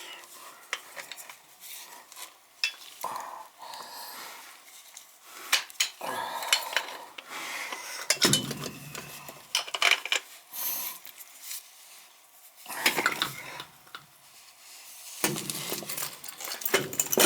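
Metal tools and gas-valve pipe fittings clinking and clattering in irregular knocks as they are handled, with a busier flurry of clanks near the end.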